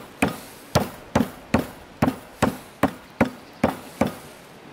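Knife chopping raw meat on a wooden cutting board: about ten sharp, evenly spaced chops, two to three a second, stopping near the end.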